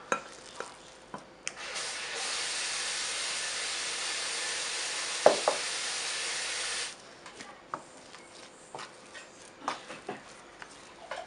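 A steady hiss begins about a second and a half in and cuts off sharply some five seconds later, with a single knock partway through. After it, soft taps and rubbing of hands kneading bread dough on a wooden board.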